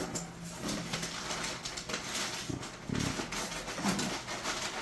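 Cardboard shipping box being handled and opened: scattered rustling, scraping and clicks, with a few short low sounds around the middle.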